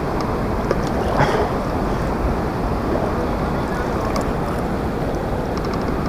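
Steady rushing noise of wind on the microphone and moving river water, with a few faint clicks, including a quick run of them near the end.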